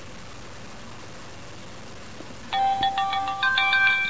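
Digital camcorder's power-on start-up tune: a short electronic jingle of several stepped notes. It starts about two and a half seconds in and lasts under two seconds.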